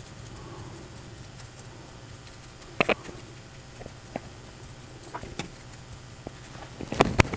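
A few light taps and clicks of a paintbrush working a thin black paint wash into a cast hydrocal plaster rock wall: one about three seconds in, a couple around five seconds, and a quick cluster near the end, over a low steady hum.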